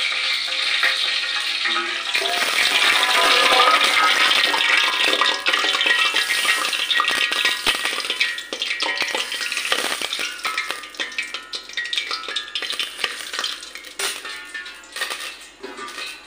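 Hot oil poured over chopped onion, tomato, chilli and ginger-garlic paste in a steel bowl, sizzling loudest a few seconds in. The sizzle then fades into the stirring and clicking of the mix against the steel bowl.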